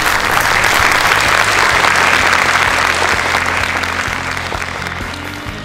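Audience applauding, a dense clapping that fades away over the last couple of seconds, with soft background music underneath.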